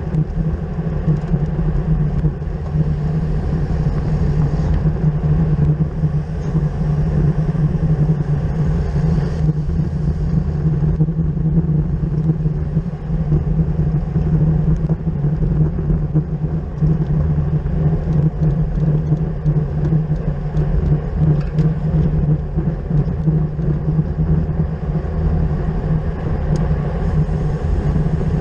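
Steady wind rush on the microphone and tyre rumble from a road bicycle riding at race speed.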